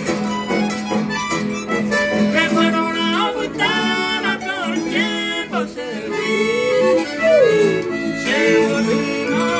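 Music: a melody over a steady low note, with a sliding pitch bend about halfway through.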